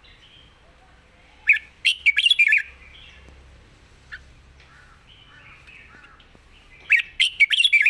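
Red-whiskered bulbul singing in its cage: two short bursts of quick warbled song notes, one about a second and a half in and another near the end, with soft, faint calls between.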